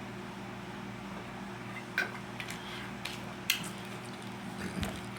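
Eating sounds: a few sharp clicks and taps of a utensil against a plate, the loudest about two seconds in and another a second and a half later, over a steady low hum.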